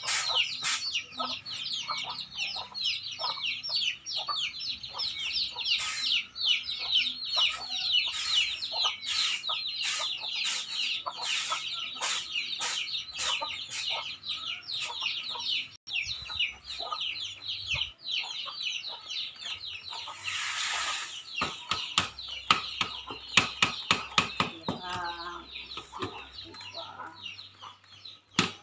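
Chicks peeping rapidly and incessantly in short, high, falling chirps, most densely in the first half, with a hen clucking. Short taps and rustles of rice being tossed on a woven bamboo winnowing tray run through it, and there is a brief rush of noise about twenty seconds in.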